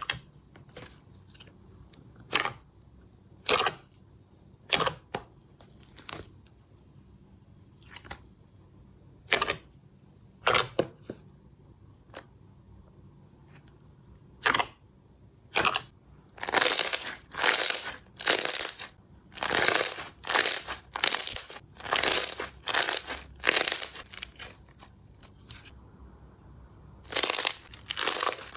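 Slime being squeezed and poked by hand, making short sharp crackling pops. They come singly at first, then in a quick run of about two a second, and stop a couple of seconds before the end.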